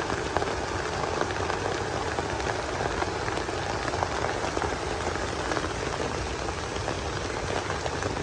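Steady rain falling, a dense even hiss of many small drop ticks.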